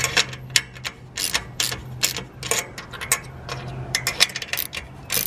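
Hand ratchet with a 7/16-inch deep-well socket clicking in short, irregular bursts as it tightens a nut on an antenna mast clamp.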